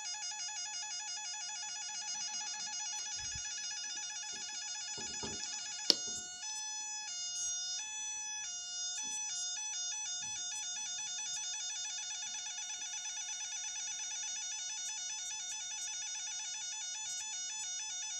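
Homemade two-transistor sound-effect circuit sounding through a small low-power speaker: a buzzy electronic tone alternating rapidly between two pitches, siren-like, its rate set by square pulses from a function generator. About six seconds in there is a sharp click, then the tone steps slowly between the two pitches for a few seconds before the alternation speeds up again as the generator frequency is changed.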